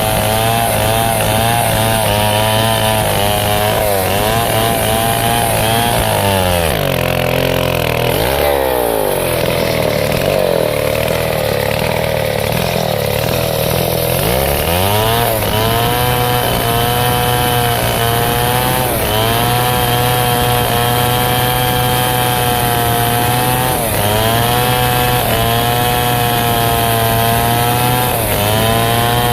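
Stihl chainsaw cutting teak wood, its two-stroke engine running at high revs under load. The pitch wavers with the cut and sags and climbs back several times in the middle.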